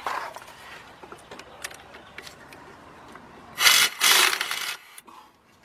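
Pneumatic impact wrench fired in two short bursts a little past halfway, tightening a bolt. Before that come light clicks and scrapes of the socket and tool being fitted onto the bolt.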